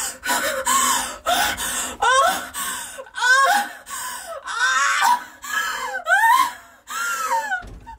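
A woman moaning and gasping in a quick series of short cries that rise and fall in pitch, the sounds of a woman in labour.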